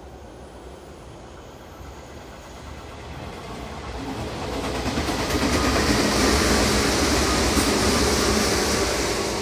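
Red Meitetsu electric commuter train passing on the adjacent line: the rumble and hiss of wheels on rail grow from about three seconds in and are loudest in the second half, with a steady hum from the train joining in.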